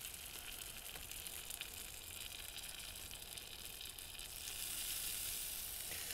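Roasting chicken sizzling faintly on a hot Cobb charcoal cooker with the lid off: a steady hiss of fat and juices cooking that grows a little louder about four and a half seconds in.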